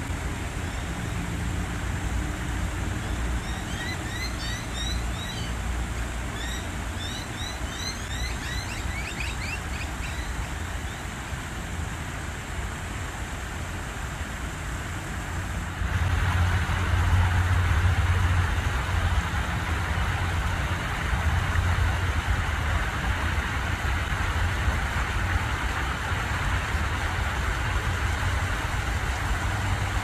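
Steady hum of distant road traffic with a low rumble, while a small bird twitters in a quick series of short rising chirps from about three to ten seconds in. About halfway through, the traffic rush steps up suddenly and stays louder.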